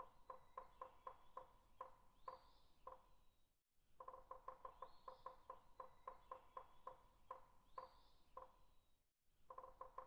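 Faint bird call: a run of short piping notes that starts quick and slows down, with a thin higher whistle over it. The same phrase comes twice, broken by a brief silence about three and a half seconds in, and starts again near the end.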